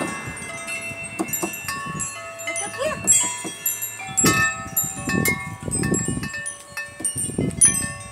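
Metal tube wind chimes ringing: many clear tones at different pitches sounding in irregular succession and overlapping as they fade, with some dull low thumps among them.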